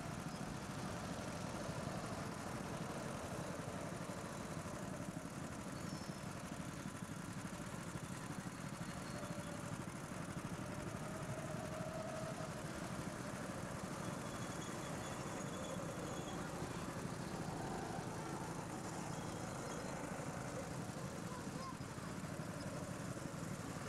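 Small go-kart engines running as the karts drive around the track, a steady mechanical noise that neither rises nor falls much.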